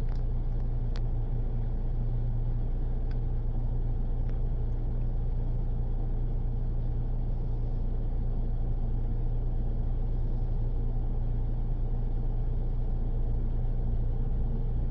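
Steady low idle rumble of a semi-truck engine heard from inside the cab, unchanging, with a few faint ticks in the first seconds.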